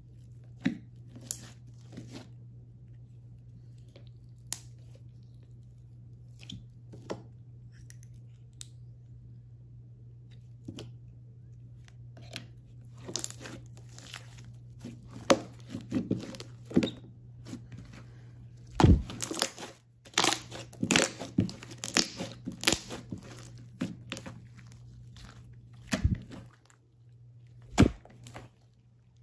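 Hands kneading, stretching and squeezing thick brown slime, making sticky crackling and popping clicks. The pops are sparse at first and come thicker and louder about halfway through.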